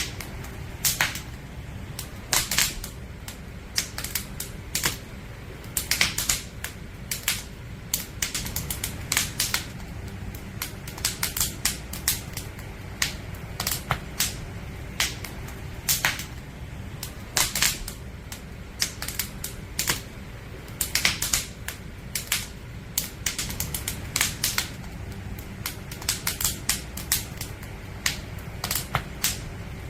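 Burning firewood crackling, with irregular sharp pops and snaps, some in quick clusters, over a steady low rumble.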